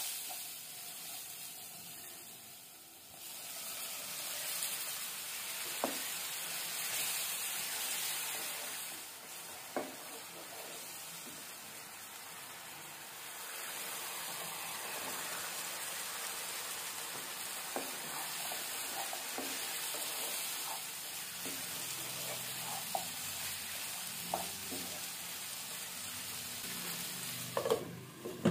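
Onion-tomato masala sizzling and frying in a non-stick pan while a wooden spatula stirs it, with occasional sharp clicks of the spatula on the pan. Near the end, a glass lid clinks as it is set on the pan.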